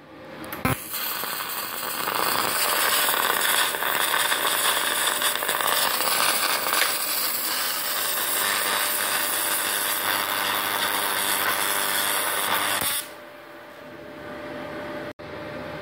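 TIG welding arc burning on steel plate under an automatic carriage. It strikes with a sharp click, runs as a loud, steady hiss with a faint crackle for about twelve seconds, then cuts off.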